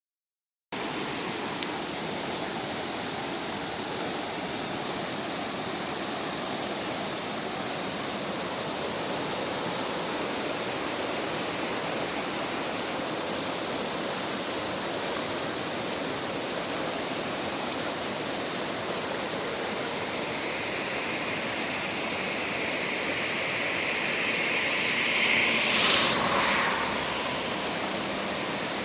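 Stream water running with a steady rushing sound. Near the end a second, higher rushing sound swells over several seconds and falls away sharply.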